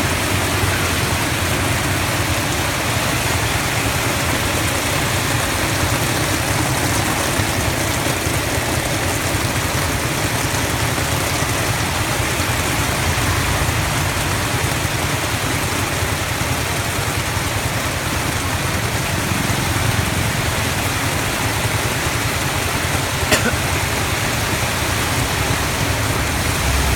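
Heavy rain hissing steadily, with a tuk-tuk's small motorcycle engine running underneath. A single sharp click sounds about 23 seconds in.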